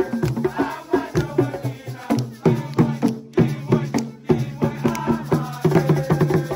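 Fast, percussion-driven music: drums and sharp clicking strikes in a quick rhythm over steady low tones.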